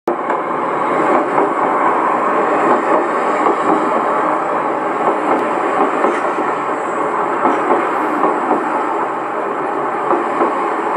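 Train noise from the end deck of a passenger coach coupled right behind a DE10 diesel-hydraulic locomotive: a steady rumble with irregular clatter from the wheels and coach, on an old 1977 cassette tape recording.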